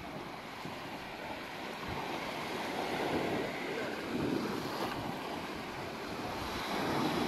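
Small waves washing onto a sandy beach, swelling and falling back a few times, with wind buffeting the microphone.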